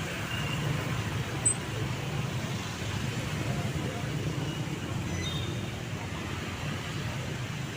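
Steady street traffic noise, vehicle engines running, with faint voices mixed in.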